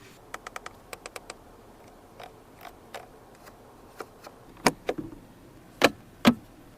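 Mechanical clicks and clunks from a Chinese electric car: a quick run of small clicks, a few scattered ticks, then four louder clunks in the second half.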